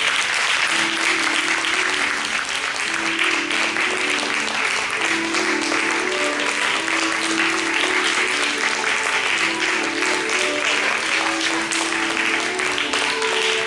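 Audience applauding steadily, with music playing a melody of held notes underneath.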